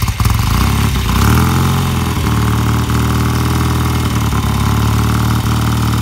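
BSA Gold Star single-cylinder engine, just fired on the kick-start, revved briefly about a second in and then settling into a steady idle through its exhaust.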